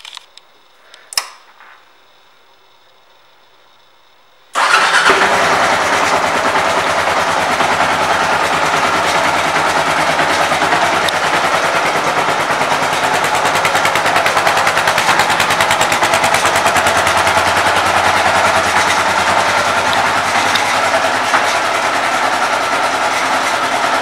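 A 2013 Kawasaki KLR 650's single-cylinder 650 cc four-stroke engine starts abruptly about four and a half seconds in, then runs at a steady idle. A sharp click comes about a second in, before the engine starts.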